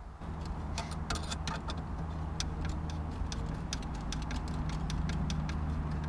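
A hand screwdriver turning a screw into a pine wooden frame, giving a run of sharp, irregular clicks, a few a second. Under it a steady low hum sets in just after the start.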